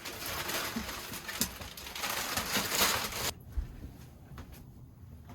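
Masking paper being peeled off a window and crumpled, a rough crackling rustle that stops suddenly a little over three seconds in, followed by a few faint clicks.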